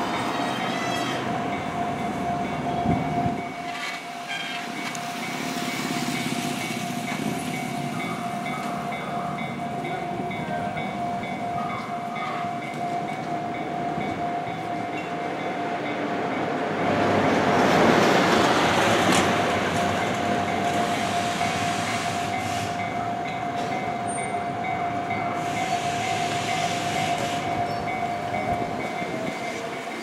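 Railroad level-crossing warning bell ringing steadily while the barriers are down. About 17 to 19 seconds in, a car and a motorcycle pass, the loudest moment, and near the end a train runs into the crossing.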